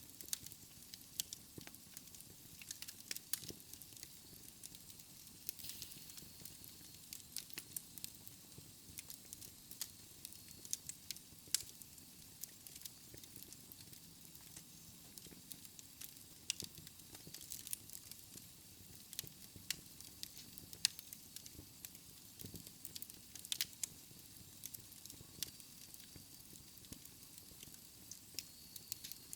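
Wood fire crackling in a fireplace: irregular sharp pops and snaps of burning logs over a faint hiss of the flames.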